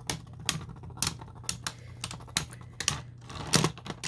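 Two spinning Beyblade tops, Zone Luinor and a 3D-printed top, clashing in a plastic stadium: a quick, irregular run of sharp plastic clicks, with a harder hit about three and a half seconds in.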